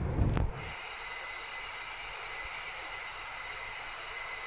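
Class 317 electric train heard on board: a low running rumble stops with a click about half a second in, leaving a steady high-pitched whine.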